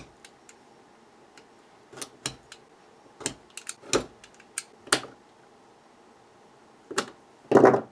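A hobby knife blade and then needle-nose pliers picking and prying at the plastic case of a 9 V lithium polymer battery: a string of small irregular clicks and scrapes. A louder snap comes near the end as the top cap pops off the case.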